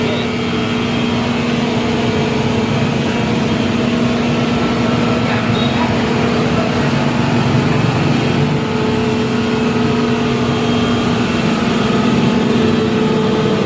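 Electric wood planer running steadily, a constant loud mechanical hum with a steady low tone.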